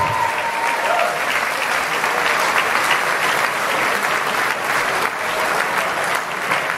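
Audience applauding, a dense steady clapping; the last held note of the dance music dies away in the first second.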